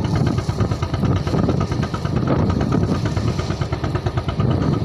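Fishing boat's engine running steadily, a fast even chugging with no change in speed.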